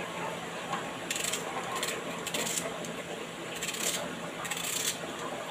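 Knife slicing a red onion thinly on a chopping board: several short runs of quick, crisp strokes about half a second to a second apart.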